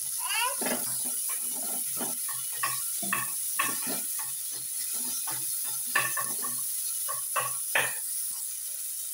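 Sliced onions sizzling in oil in a nonstick kadai, stirred with a wooden slotted spatula that scrapes and knocks against the pan over and over, with the sharpest knocks about six and eight seconds in.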